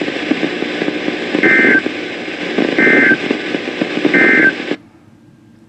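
NOAA Weather Radio end-of-message signal: three short bursts of SAME digital data tones, about 1.4 s apart, over static from a weather radio's speaker, marking the end of the alert message. The transmission cuts off suddenly near the end, leaving a faint hum.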